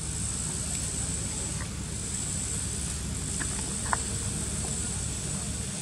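Steady outdoor background noise: a continuous low rumble under an even high hiss, with a few faint clicks about halfway through.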